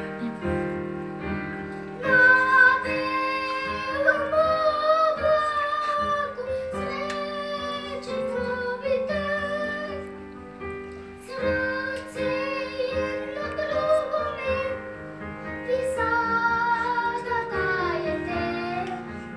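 A young girl singing a song solo over instrumental accompaniment. Her voice comes in about two seconds in and carries the melody in long phrases, with one short pause around the middle.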